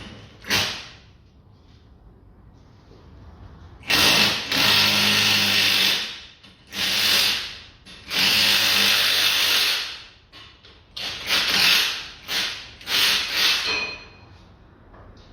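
Power tool run in bursts, undoing the upper mount of a car's front shock absorber: three long runs of about two seconds each, then several short blips. A sharp click comes about half a second in.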